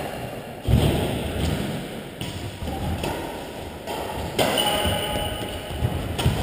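Badminton play: racket strokes on the shuttlecock and players' footfalls on the court floor, with a heavy thud less than a second in and sharp hits near the end.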